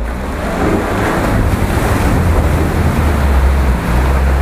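An off-road 4x4 churning through deep mud and water, its engine pulling under load with a deep steady rumble, mixed with the splashing and slurry of the tyres.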